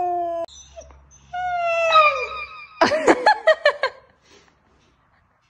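Siberian huskies vocalizing: a steady held howl that breaks off about half a second in, then a long howl sliding down in pitch, then a quick string of about eight short yips.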